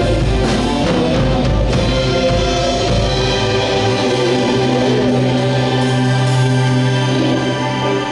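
Live band playing amplified music during a sound check, with drum strokes for the first few seconds. About halfway through the drums drop out and a held low chord sustains.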